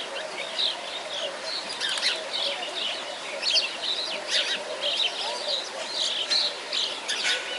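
Small birds chirping and tweeting, many short high chirps overlapping throughout.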